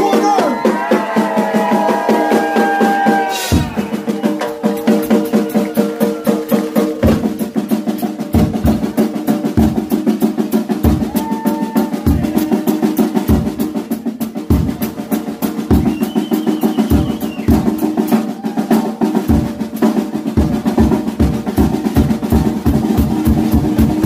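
Rock drum kit played as a live solo: fast rolls on the snare and toms over regular bass drum kicks, and the kicks come faster near the end.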